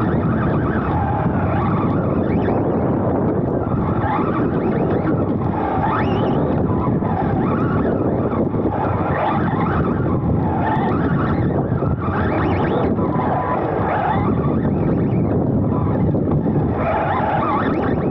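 Onboard sound of a Serpent SRX2 2wd electric RC buggy racing: steady wind buffeting the car-mounted microphone, with the brushless motor's whine rising and falling again and again as the car accelerates and slows through the corners.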